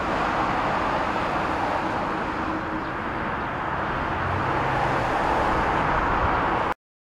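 Boeing 737-800 freighter's CFM56-7B turbofan engines at takeoff power: a steady jet engine noise as the aircraft lifts off and climbs away. The sound cuts off suddenly near the end.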